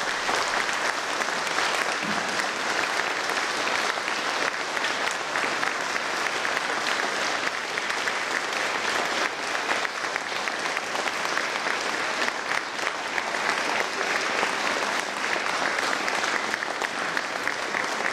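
A large audience applauding steadily with sustained clapping.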